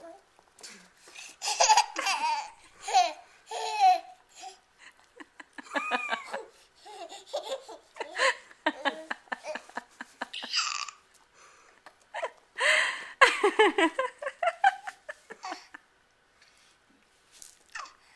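A baby laughing hard in several bouts of giggles and belly laughs, with short pauses between them.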